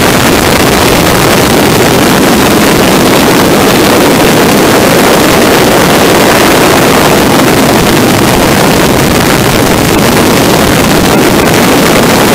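De Havilland Tiger Moth biplane in flight: a loud, steady roar of rushing air and engine, with heavy wind buffeting on the microphone.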